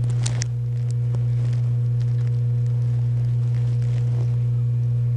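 A steady low hum with fainter overtones above it, the loudest sound throughout, with a few faint rustles of a paper shop towel being wiped along a TIG filler rod.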